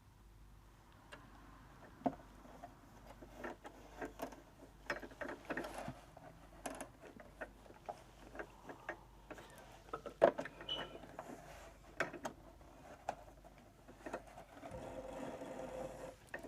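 Brother LS14 sewing machine: irregular clicks and knocks as the machine and fabric are worked, then a short steady run of stitching near the end.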